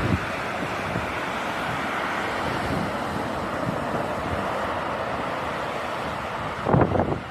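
Storm wind and rough sea surf: a steady rushing hiss, with a loud gust buffeting the microphone near the end.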